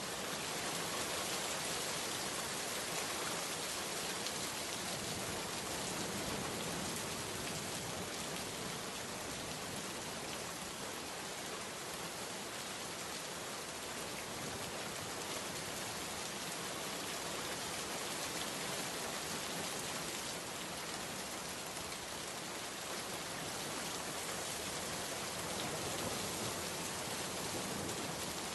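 Steady rain: an even, unbroken hiss with no pauses or single loud events.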